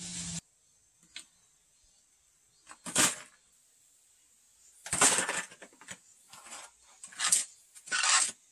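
A short-handled hand hoe striking and scraping into hard-packed earth and stones in a pit. There are about five sharp knocks at irregular gaps of one to two seconds, some trailing off in a gritty scrape.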